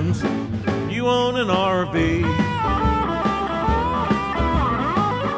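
Country-blues song with band backing and a lead guitar line of bent, sliding notes.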